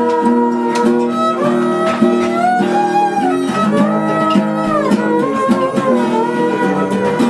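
Fiddle and acoustic guitar playing together without singing: the fiddle holds long bowed notes, some sliding in pitch, over strummed guitar chords.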